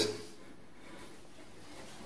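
Quiet room tone after a man's voice trails off at the very start; no distinct sound.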